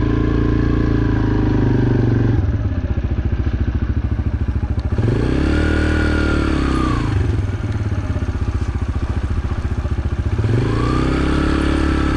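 Dirt bike engine running, ridden up and down fresh dirt jumps to pack them down. It revs up and back down twice, once about halfway through and again near the end.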